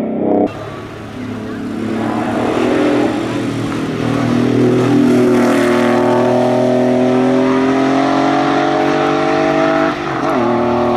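Porsche 911's flat-six engine at full throttle in a race, its pitch climbing steadily through a gear, then dropping sharply at a gear change near the end before rising again.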